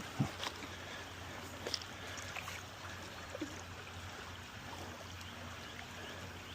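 Creek water running steadily over rocks, with a few faint knocks in the first couple of seconds.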